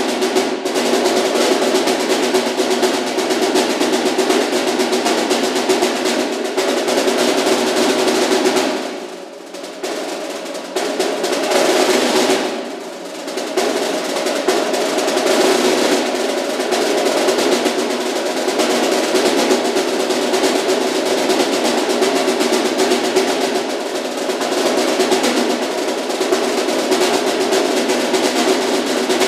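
Solo snare drum played with sticks: fast, dense strokes and rolls, dropping briefly quieter twice, around nine and thirteen seconds in.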